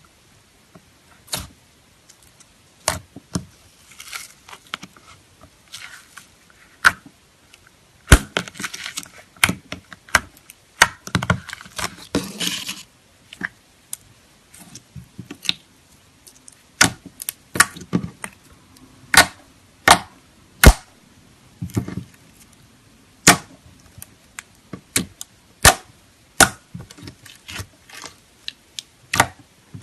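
Slime being squeezed and poked close to the microphone, giving sharp pops and clicks at irregular intervals. There is a denser run of crackling about a third of the way through.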